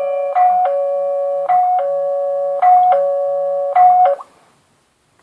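Wi-Fi doorbell chime, running on its USB power lead, playing a loud electronic tune of two alternating high and low notes that stops about four seconds in.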